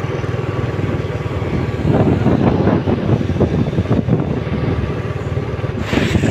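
Motorcycle engine running steadily while riding, with wind buffeting the microphone in rough gusts.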